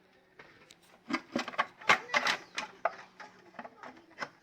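Irregular metallic clicks and knocks of hand tools and parts being handled on an engine, starting about a second in.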